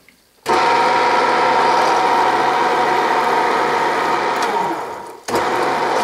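Bridgeport milling machine starting about half a second in and running steadily in back gear at slow speed, with a steady gear whine, as it power-drives a 1/2-20 tap held in a Jacobs chuck. The sound sags and briefly drops out a little after five seconds, then resumes abruptly.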